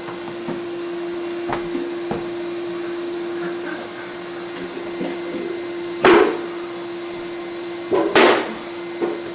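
Steady machine hum with a few light knocks and two loud bangs, about six and eight seconds in.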